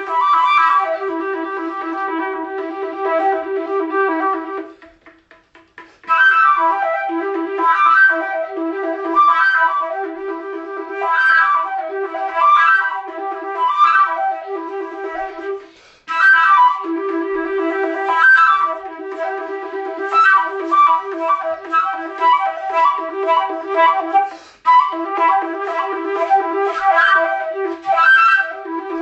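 Instrumental background music with a melodic line, dropping out for about a second roughly five seconds in and briefly again around sixteen seconds in.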